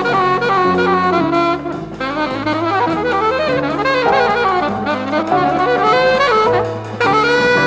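Jazz soundtrack music: a saxophone-led band with brass playing a sliding, bending melody over a walking bass line.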